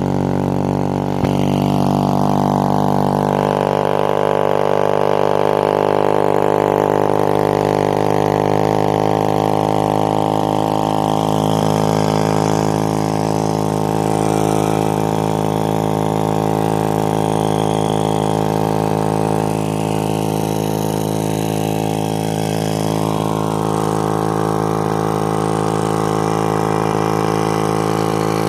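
Old Craftsman two-stroke chainsaw engine idling steadily, with no revving.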